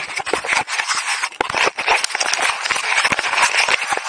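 Skis scraping over snow: a steady loud hiss with many sharp clicks and chatter, the sound of skiing downhill.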